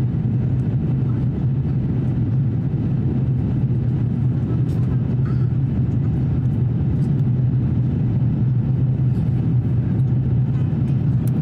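Cabin noise of an Airbus A350-1000 climbing after takeoff: a steady low drone of its Rolls-Royce Trent XWB engines and the airflow, heard from a window seat over the wing.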